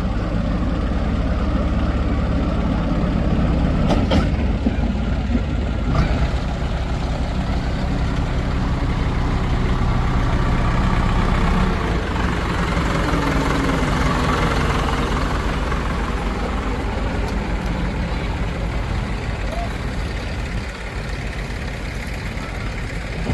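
Heavy diesel farm machinery engine running steadily, with two sharp knocks about four and six seconds in.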